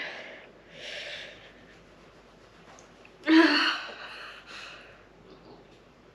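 A woman's sharp, breathy gasps and hissing breaths from the burn of a habanero pepper she has just eaten, with the loudest gasp about three seconds in.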